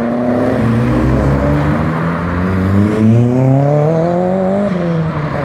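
Tuned car's engine accelerating hard away, its pitch climbing steadily for several seconds through one gear, then dropping at a gear change near the end.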